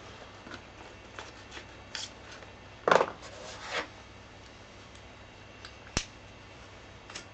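Leather gloves and coat rubbing and creaking in small movements, with scattered light clicks. A louder rustle comes about three seconds in and a sharp click about six seconds in.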